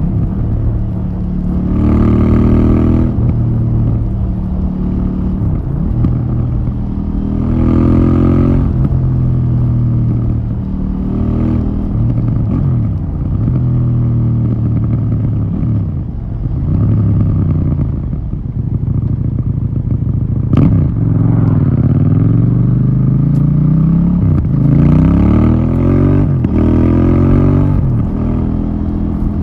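KTM 790 Duke's 799 cc parallel-twin engine running through its stock exhaust, revving up and dropping back several times, with a few quick rises in pitch in a row near the end.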